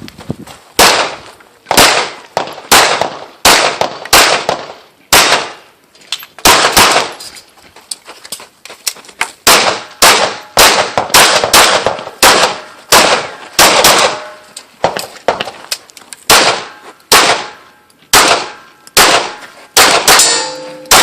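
Pistol shots fired in quick strings through a USPSA stage, one or two a second with a pause of about two seconds a third of the way in. Near the end steel targets ring after hits.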